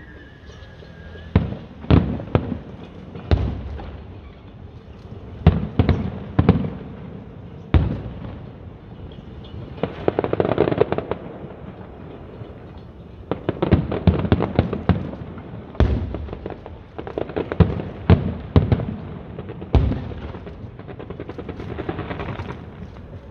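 Fireworks show: aerial shells bursting as sharp booms at irregular intervals, some bunched in quick clusters, with a denser crackling stretch about ten seconds in and another a few seconds later.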